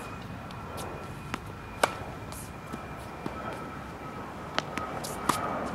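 Tennis racket striking the ball during backhand practice on a hard court, heard as sharp pops, the loudest about two seconds in and two more near the end, mixed with the ball bouncing. A faint steady high whine sits underneath.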